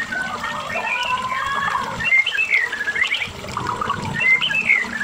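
White-rumped shama (murai batu) singing a fast, varied song of whistled glides, rising and falling phrases and quick warbled notes.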